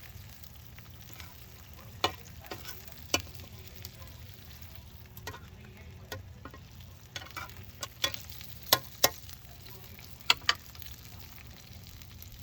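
Food frying in hot grapeseed oil in a pan, a steady sizzle with scattered sharp pops and clicks, a quick pair of loud ones near the end.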